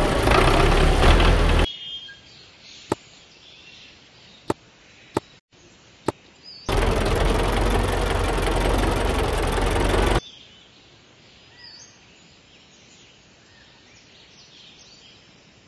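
Tractor engine running in two stretches of a few seconds each, each cutting off abruptly. Between and after them is a quiet outdoor background with a few sharp clicks and faint bird chirps.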